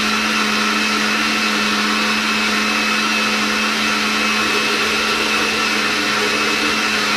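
Countertop jug blender running steadily with an even motor hum and whine, puréeing cooked pumpkin and cheese into a smooth cream.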